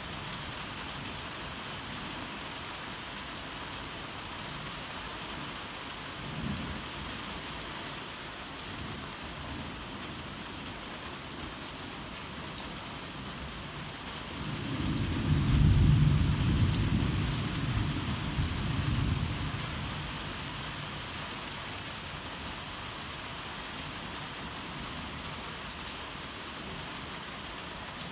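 Steady rain falling throughout, with a brief low rumble of thunder about six seconds in. About halfway through a louder thunder rumble builds, peaks, and dies away over about five seconds.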